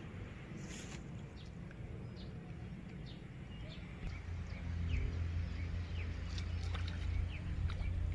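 Birds chirping: many short, quick falling calls scattered throughout. Underneath is a low rumble that gets louder about four seconds in.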